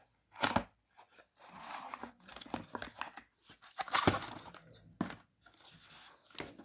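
Cardboard box and paper packaging being handled: irregular rustling with sharp clicks and knocks as the box's contents are taken out.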